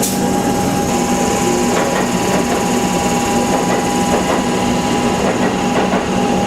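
Electric suburban train at the platform, giving a steady hum with a constant mid-pitched tone and scattered light clicks.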